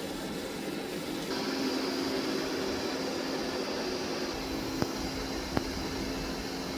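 Roborock S9 MaxV Ultra robot vacuum running with a steady fan-like motor noise that steps up about a second in, adding a steady hum and a higher whine. Two sharp clicks come a little under a second apart near the end.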